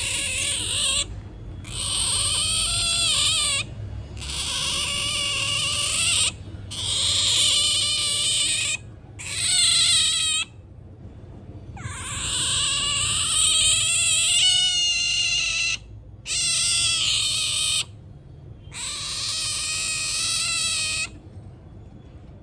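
An otter calling in a run of about eight long, high-pitched, wavering squeals, each lasting one to two seconds with short pauses between them.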